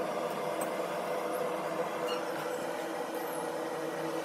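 A steady machine hum that does not change, with a few faint, short high squeaks over it.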